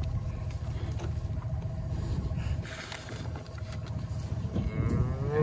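Wind buffeting the microphone in a low, steady rumble. Near the end an Angus cow gives a short moo.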